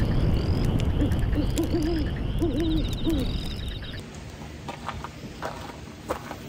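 An owl hooting: a run of wavering hoots over a heavy low rumble, with faint high chirps. About four seconds in, the rumble gives way to a quieter background with a few soft knocks.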